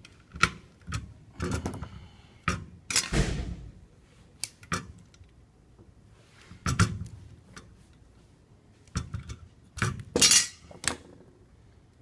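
Hand tools and a copper ground wire clinking, clicking and knocking against galvanized steel electrical boxes and EMT conduit fittings as the ground wire is wrapped around the box's ground screw and tightened down. The sounds come irregularly, with louder clatters about three seconds in and again about ten seconds in.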